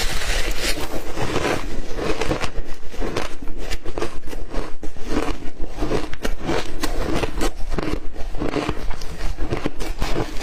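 Ice being chewed: a dense, irregular run of sharp crunches and cracks, several a second.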